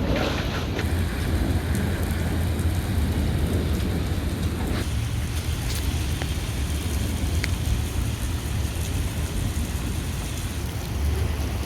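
Heavy rain falling steadily, with a constant low rumble underneath and a few sharp ticks.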